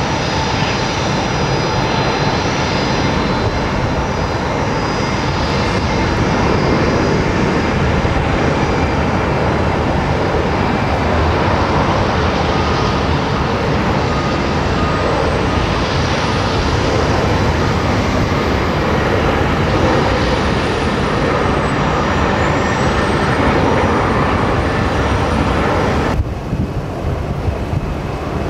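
Boeing 737 twin jet engines running loud and steady as the airliner rolls along the runway, with a high whine that wavers up and down in pitch through the second half. Near the end the sound cuts abruptly to a quieter jet airliner on approach.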